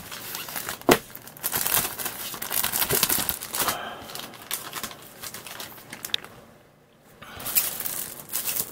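Clear plastic bags crinkling as they are handled and opened, with scattered sharp clicks and a short lull about seven seconds in.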